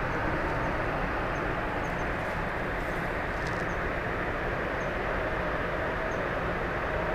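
Steady outdoor background noise, an even rushing sound with a low rumble, with a few faint short high chirps now and then.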